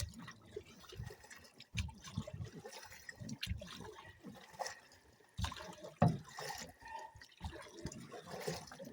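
Water lapping and splashing against the hull of a drifting boat, in small irregular splashes.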